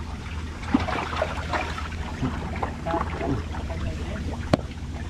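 River ambience: water trickling and lapping around a wooden boat over a steady low hum, with faint scattered chirps, and one sharp click about four and a half seconds in.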